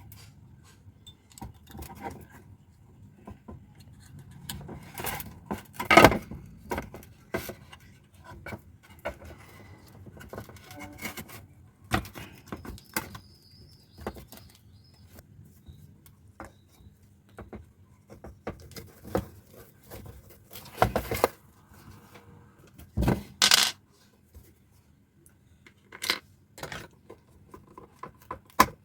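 Scattered knocks, clicks and light metallic clatter of a loudspeaker being handled and fitted into its speaker box with screws. The sharpest knock comes about six seconds in, with more around twenty-one and twenty-three seconds.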